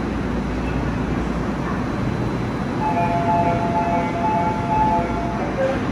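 Subway train at a platform with a steady hum, and a door-closing warning chime of repeating two-note tones starting about three seconds in and lasting about two seconds as the train doors and platform screen doors close.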